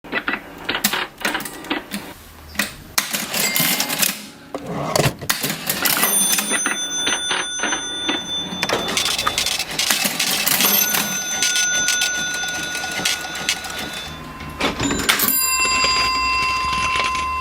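Vintage mechanical cash register: a busy clatter of keys and levers, and the register's bell ringing out three times, each ring hanging on for a few seconds.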